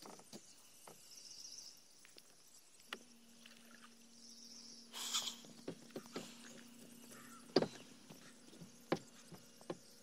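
Faint steady hum of a small electric trolling motor driving the fishing boat away from the dock, starting about three seconds in. Scattered knocks of footsteps on the wooden dock planks, the loudest a little after halfway, and a high insect buzz that comes and goes twice.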